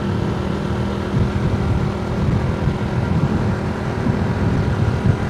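Honda Astrea Grand's small four-stroke single-cylinder engine running at a steady cruise, heard from the rider's seat, with wind and road rumble over it.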